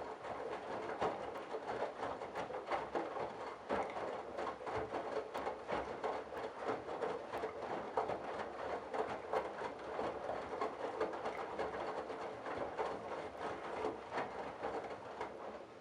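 Candy Bianca washing machine drum tumbling a load of wet towels, with irregular splashing and patter; the drum stops suddenly near the end.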